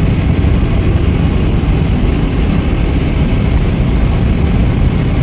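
Cars driving through deep floodwater in a road underpass: a steady, loud, low rumble.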